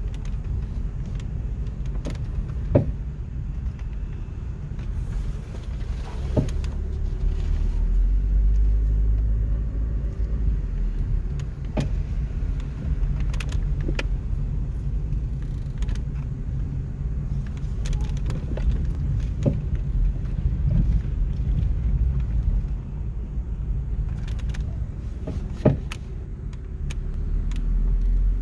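2003 Hyundai Elantra rolling with a steady low rumble, and sharp clicks and clunks every few seconds from the front steering and suspension as it turns and brakes. The uploader traced the clunking to bolts left well under torque specification.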